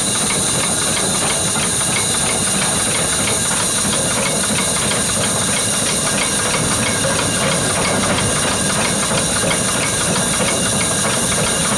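Liberty ship's steam cargo winches running as they hoist a load: a steady steam hiss with a fast, regular beat from the winch engines.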